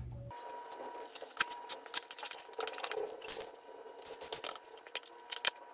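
Glue stick rubbed over cardboard, then a paper strip pressed and smoothed down by hand: scattered light taps, scrapes and rustles of paper and cardboard.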